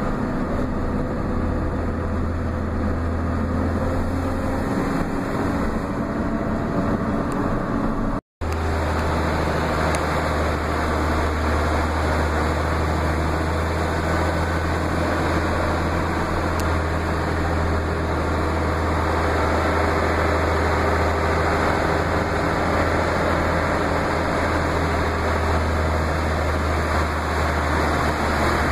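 Steady drone of a truck's engine and road noise heard from inside the cab while driving, with a constant deep hum. The sound cuts out for an instant about eight seconds in.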